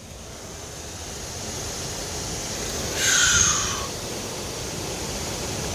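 Hurricane-force wind blowing steadily, building slowly, with one louder gust about three seconds in that sounds like a jet engine.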